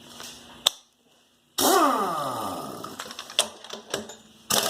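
Power impact wrench on the wheel's lug nuts: a click, then a loud burst about a second and a half in that falls in pitch as the tool spins down, and near the end a short burst of rapid hammering.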